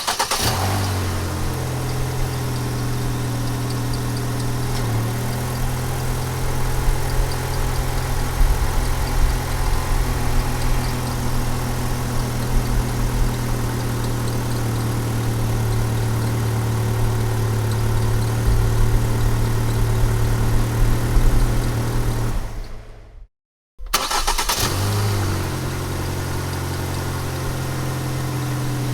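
Car engine starting and settling into a steady idle. After about 22 seconds it dies away to silence, then the engine is started a second time and idles steadily again.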